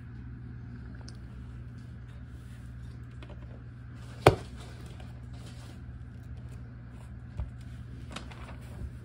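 Small plastic toy-playset pieces being handled during assembly, with one sharp click or knock about four seconds in and a fainter one about seven seconds in, over a steady low hum.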